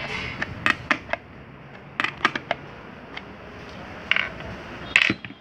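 Irregular sharp clicks and taps of a plastic motorcycle tail light housing and a small metal tool being handled, about ten in all, the loudest near the end.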